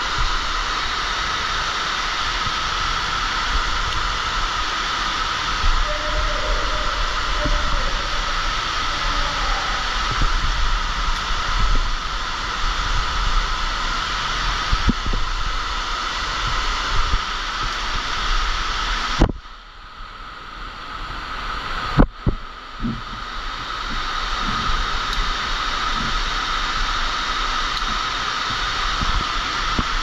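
Steady rush of an underground waterfall, with a few light clicks and knocks. About two-thirds of the way through the rushing drops away suddenly, and after a sharp click a few seconds later it builds back up.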